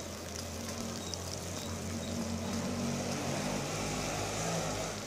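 Chopped capsicum, garlic and coriander sizzling in hot oil in a kadai as a wooden spatula stirs them, over a steady low hum.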